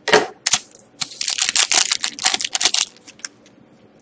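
Foil wrapper of a Panini Titanium hockey card pack being torn open and crinkled by hand: a quick string of sharp crackles, thickest from about one to three seconds in, then fading.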